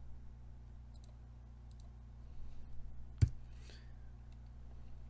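Soft clicks of a computer mouse and keyboard, with one sharp louder click a little past three seconds in, over a low steady hum.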